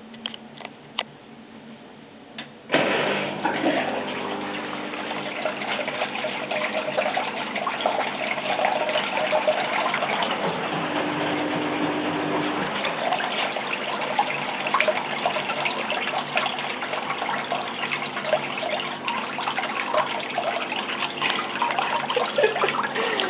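Waste water from a washing machine's pump-out gushing and splashing up out of a sink drain, starting suddenly about three seconds in after a few light clicks: the drain is backing up into the sink.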